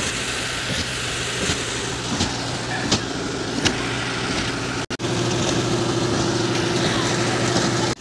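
Diesel engines of a transit mixer truck and concrete pump running steadily while concrete is pumped, with a few sharp knocks in the first half. The sound drops out briefly about five seconds in, then carries on as a steadier hum with a held higher tone.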